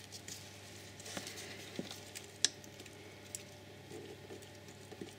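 Faint scattered plastic clicks and small scrapes as a flat-blade screwdriver pries and rocks the electrical connector off an ignition coil pack on an Audi 4.2 V8. The sharpest click comes about two and a half seconds in.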